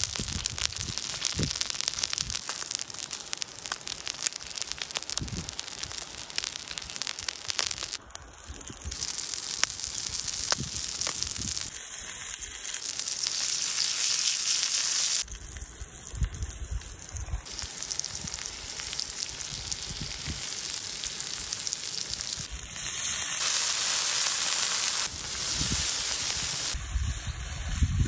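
Oil sizzling on a hot, fire-heated stone slab as small whole fish fry in it: a steady hiss with scattered crackles and pops, stepping louder and softer at a few points.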